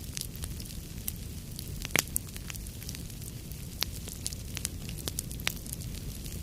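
Fire burning with a steady low rumble and irregular sharp crackles and pops, the loudest pop about two seconds in.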